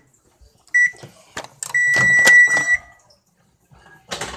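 Microwave oven's hum cuts off, then it beeps: one short beep about a second in, then a longer beep lasting about a second, with a few clicks and knocks of the door and bowl being handled.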